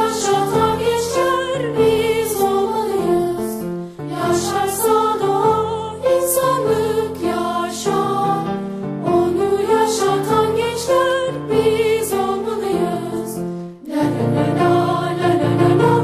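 A school anthem in march style, sung by voices over instrumental accompaniment, in phrases with short breaks between them. About fourteen seconds in, a new phrase begins with a fuller, lower accompaniment.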